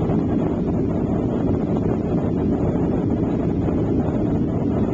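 Steady cabin noise of a Boeing airliner climbing after take-off: the jet engines and the air rushing past the fuselage, heard from inside the cabin as an even, low rumble.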